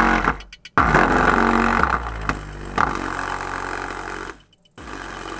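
Overdriven 6x9 car speaker playing a music track with heavy buzzing distortion. It is being pushed past its power handling to blow it, and the sound cuts out briefly twice, about half a second in and again near the end.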